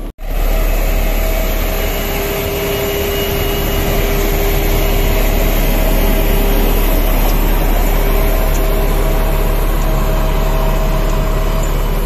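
L&T 1190D single-drum vibratory soil compactor running, its diesel engine giving a steady, loud low rumble with a steady whine over it as the machine drives by.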